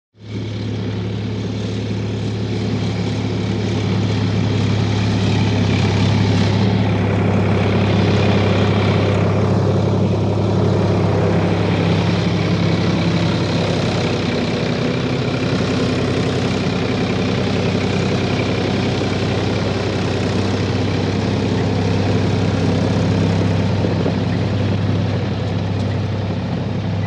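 A heavy engine running steadily, a deep even drone. It starts abruptly and begins to fade near the end.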